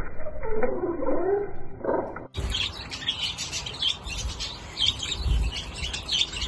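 Budgerigars chirping and chattering in quick high calls, with a few low thumps. For the first two seconds the sound is muffled and deep, with slow gliding tones, before it switches abruptly to normal chirping.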